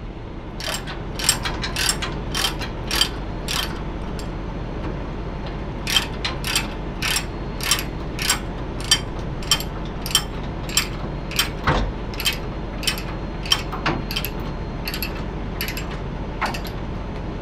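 Ratchet-type chain load binder being cranked on a flatbed trailer, its pawl clicking about twice a second with a pause about four seconds in, as the tie-down chain is tightened over the load.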